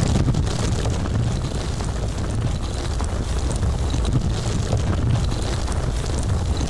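Continuous deep rumble of a landslide, steady throughout, with faint scattered crackles of stones and rocks above it.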